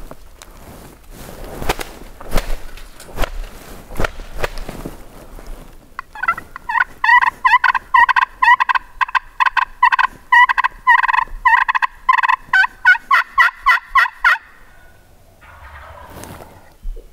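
A turkey call worked loudly through a long, aggressive run of rapid yelps and cutts, about three notes a second, starting about six seconds in and stopping after some eight seconds. A few brief rustles come before it.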